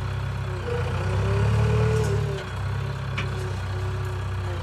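JCB machine's diesel engine running with a steady low rumble, a thin whine above it wavering slightly in pitch. The engine swells a little about a second in, then settles.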